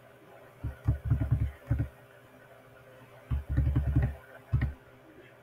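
Two clusters of dull, low thumps, each lasting about a second, the first near the start and the second in the middle.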